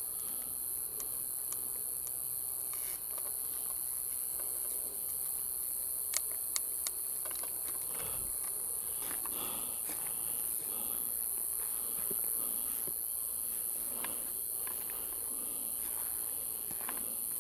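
Night insect chorus, a steady high-pitched shrill of crickets or similar insects, with three sharp clicks in quick succession about six seconds in and faint rustling.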